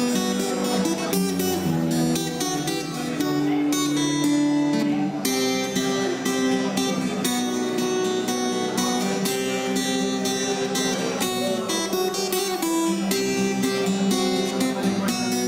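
Acoustic guitar strumming chords at a steady rhythm.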